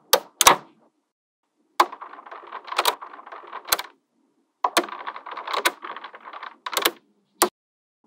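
Small magnetic balls snapping together: two sharp clicks near the start, then two stretches of rapid clattering as many balls settle against one another, each with a louder snap, and a last click near the end.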